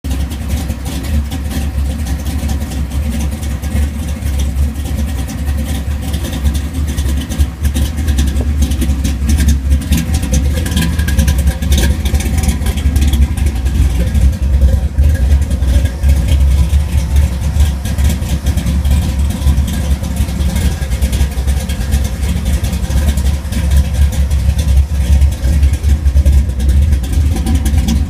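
A 427 cubic-inch stroker V8 with a hydraulic roller cam and ported high-port heads, running steadily on its raw, untuned startup tune, a little louder from about eight seconds in.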